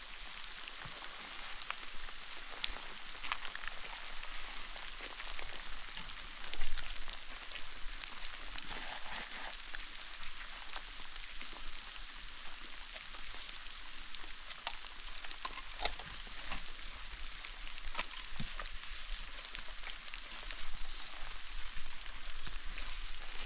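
Hollow concrete blocks being set and shifted on a block wall, giving scattered short knocks and scrapes, with one louder knock about seven seconds in, over a steady hiss.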